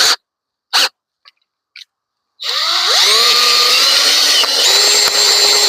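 Power drill driving a 4-inch mini chainsaw attachment spins up about two and a half seconds in and then runs steadily at high speed, its pitch rising as it gets up to speed. It is run with little pressure on the branch.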